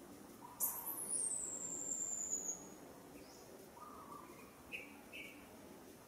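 Outdoor wildlife calls from the trees: a loud, very high thin call that falls steadily in pitch for about two seconds, followed by softer short chirps about four and five seconds in.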